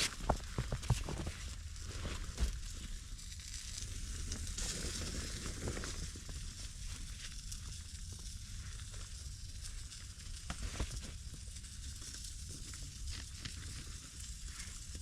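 Bacon-wrapped venison steak and onions sizzling steadily in a hot cast iron pan over a campfire, with many small crackles.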